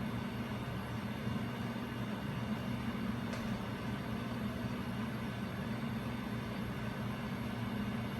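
SMC "The Carolina V" 52-inch ceiling fan running, its motor giving a steady low hum.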